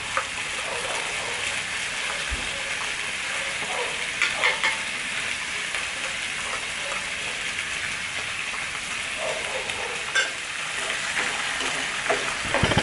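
Chopped onion and garlic sizzling in hot oil in a frying pan on a gas stove, a steady hiss throughout. A few short clicks cut through it, and near the end a spatula stirs the pan.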